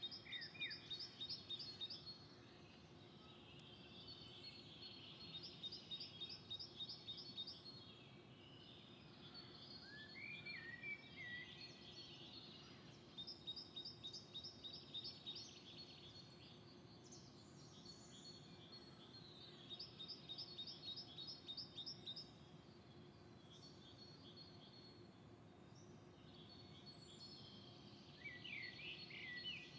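Songbirds singing in otherwise near silence: one bird repeats a short, fast, high trilling phrase about every seven seconds, and a second bird gives a few lower whistled notes in between. A faint steady hum lies underneath.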